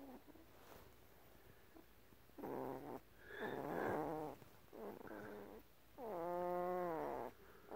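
Newborn Great Pyrenees puppy vocalizing in its sleep: four short low moaning calls starting a couple of seconds in, the last one longer and dropping in pitch at its end.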